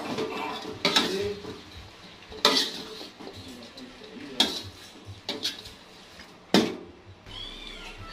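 A metal spatula scraping and clanking against an aluminium wok while sawi and tofu are stir-fried, with about five sharp clanks a second or two apart.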